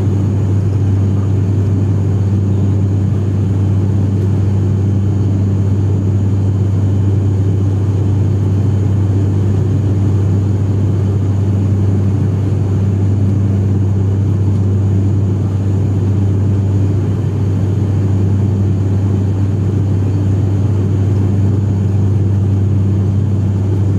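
ATR 72-500's Pratt & Whitney PW127 turboprop and six-blade propeller heard from inside the cabin beside the engine, a loud steady drone with a deep unchanging hum, during the climb after takeoff.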